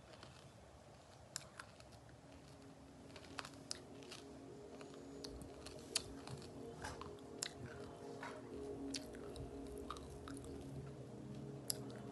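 Small dog eating from a stainless steel bowl, crunching its food in irregular, sharp crunches.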